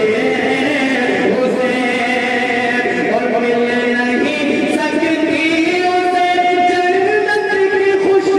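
A man chanting a manqabat, a devotional poem in praise of Imam Husain, into a microphone, holding long, wavering notes and gliding between them.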